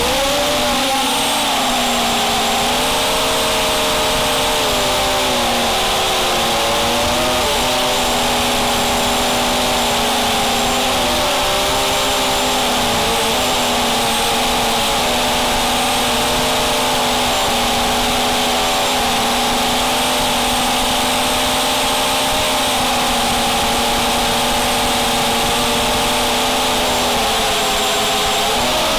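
A 250-size FPV racing quadcopter's brushless motors and propellers whining steadily from on board, the stacked pitch dipping and rising as the throttle changes, over a strong hiss of wind and prop wash.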